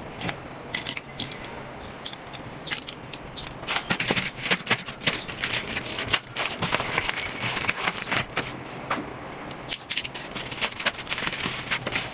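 Packaging being handled and torn open: crackling, rustling and a quick run of sharp clicks, busier from about four seconds in.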